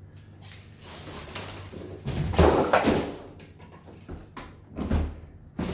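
Rustling and knocking as packaging and parts of a new dishwasher are handled during unboxing, with the loudest knocks about two and a half seconds in and again about five seconds in.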